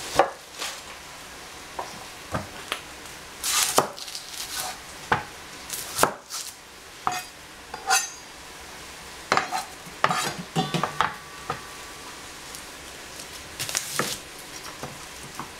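Kitchen knife knocking and cutting on a plastic cutting board as a whole onion is trimmed and peeled: irregular sharp taps scattered through, some louder than others.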